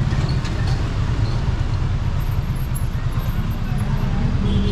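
Slow, congested street traffic: vehicle engines idling close by, a loud, steady low rumble under a general traffic noise.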